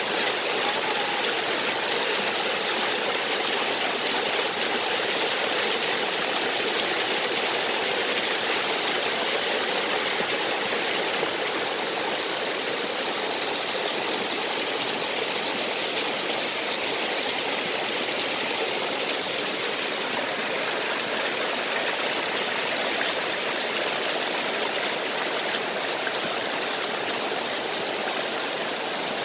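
Water of a stream and small waterfall rushing and splashing, a steady even roar without pauses.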